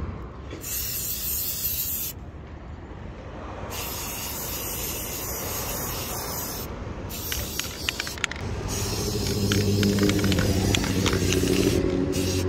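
Aerosol spray-paint can hissing in several bursts of one to three seconds each, spraying black paint onto a car's grille. About two-thirds of the way in, a steady low hum joins and becomes the loudest sound.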